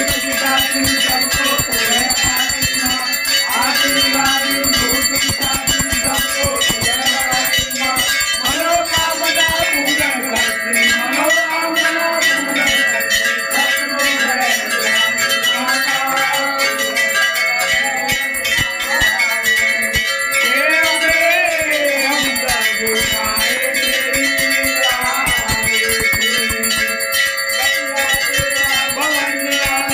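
Temple bells rung rapidly and without pause during an aarti, with many ringing tones overlapping, while a crowd of devotees sings the aarti together.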